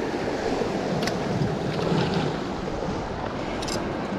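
Ocean surf washing against sea rocks, with wind buffeting the microphone. Two brief clicks, about a second in and near the end.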